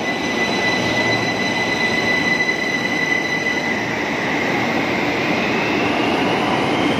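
Train running: a steady rumble of rolling noise with a high, steady whine, and a second whine that rises in pitch over the last few seconds.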